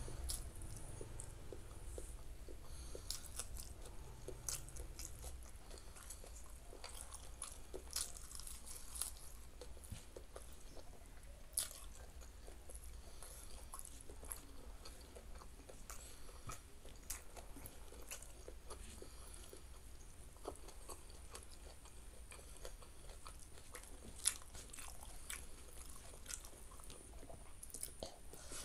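Close-miked eating sounds: chewing and wet mouth clicks, with scattered small crunches and crackles. Two sharper clicks stand out, one near the middle and one about three quarters through. Fingers squeeze and mix rice on a banana leaf.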